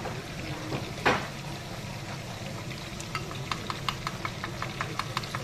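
Sweet-and-sour sauce sizzling in a wok while a wooden spatula stirs it, with one sharp knock about a second in. From about three seconds in, quick repeated clicks as the wooden spatula scrapes raw eggs out of a ceramic bowl into the wok.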